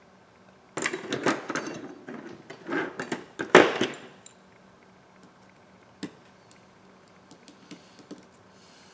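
Small hand tools clattering and rattling as they are rummaged through and picked up, for about three seconds, followed by a few faint clicks, one sharper than the rest.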